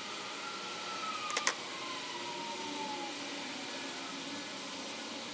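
Toothbrush bristles scrubbing small metal clamp parts in a gloved hand, with two quick clicks of the parts knocking together about a second and a half in. A faint tone glides slowly downward behind it over the first few seconds.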